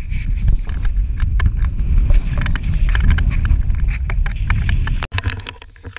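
Wind rumbling on the action camera's microphone, with scattered clicks and scuffs over it; the rumble drops out abruptly about five seconds in.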